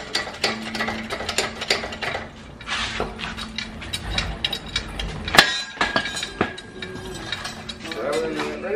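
Hand socket ratchet clicking in quick irregular runs as bolts on the engine and transmission assembly are worked, with metal clinks and one sharp metallic knock about five seconds in.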